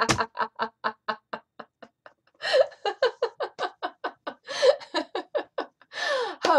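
A woman laughing out loud in a laughter yoga exercise. A rapid run of 'ha' sounds tapers off about two seconds in, and after a brief pause a second bout of laughter follows.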